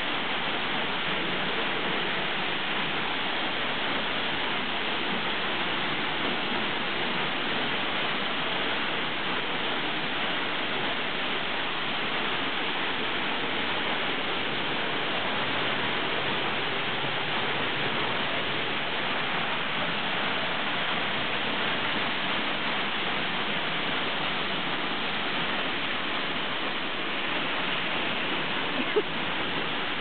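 Tunnel Falls, a tall waterfall, pouring close by: a steady, unbroken rush of falling water. A single brief click sounds near the end.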